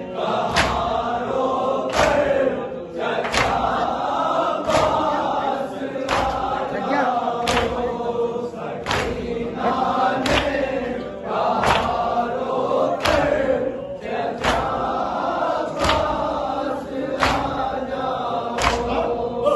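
A group of men chanting a nauha in unison while beating their chests together in matam, one loud slap about every second and a half, keeping the rhythm of the chant.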